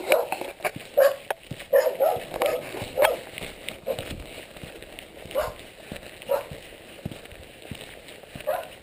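A dog barking repeatedly, short barks close together at first, then more spaced out.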